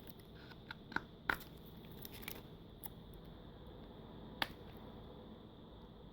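Snap-in plastic clips of a tablet's back cover clicking as a card is pried along the edge: a few sharp, scattered clicks, the sharpest about four and a half seconds in.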